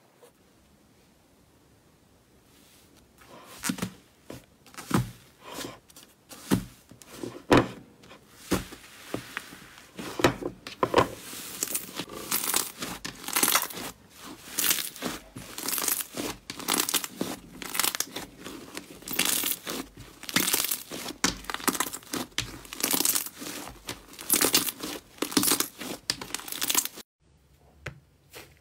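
Hands pressing, poking and stretching a white fluffy slime, giving irregular crackling, popping and tearing sounds. It begins after a few seconds of quiet and stops abruptly near the end.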